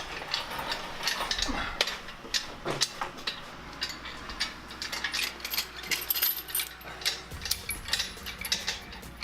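Irregular metallic clicking and clinking of hand tools working on the car's bolts.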